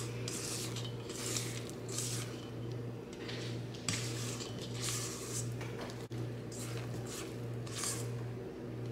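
Silicone spatula scraping thick creamed batter off the sides of a stainless steel mixing bowl: a run of short, soft scrapes and squishes, one every half second to a second, over a steady low hum.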